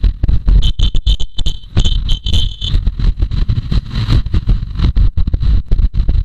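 Heavy wind buffeting on an action camera's external microphone on a motorcycle at around 80–95 km/h: low, rumbling gusts that chop in and out and drown the engine. Above about 50 km/h the external mic is overwhelmed by this wind noise. A high steady tone sounds over it for about two seconds, starting about half a second in.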